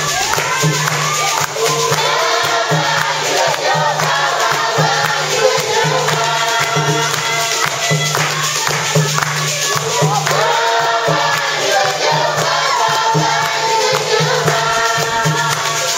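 Gospel music: a choir of voices singing together over a steady beat.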